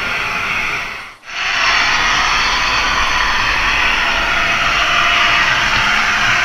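Heljan O gauge Class 55 Deltic model locomotive running steadily along the layout's track. The noise dips sharply for a moment about a second in, then carries on a little louder.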